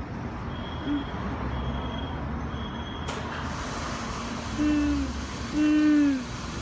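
Steady low rumble inside an automatic car-wash tunnel. Three high electronic beeps in a row during the first three seconds, followed by a click. Short hooting tones, each dipping slightly in pitch, are the loudest sound: once about a second in and three times in the second half.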